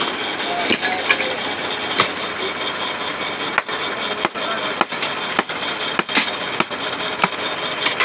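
Engine of a borewell pipe-lifting machine running steadily, with sharp knocks that repeat about every half second in the second half.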